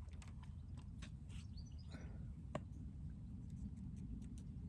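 Cast of a float fishing rod: a faint swish about two seconds in, then a single sharp click, over a steady low rumble of wind on the microphone.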